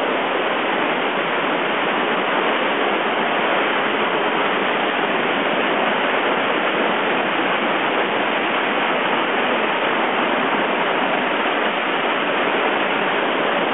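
Tunnel Falls, a waterfall on Eagle Creek, falling with a steady, unbroken rush of water.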